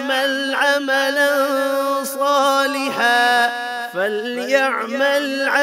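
A man chanting Quran recitation (tilawat) in the Panipati style, slow and melodic, holding long drawn-out notes with gliding ornaments between them.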